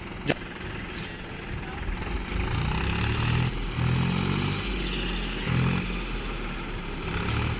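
Swaraj 843XM tractor's diesel engine labouring under load while pulling a loaded trailer bogged in loose sand, its note surging up and down several times. A sharp click sounds just after the start.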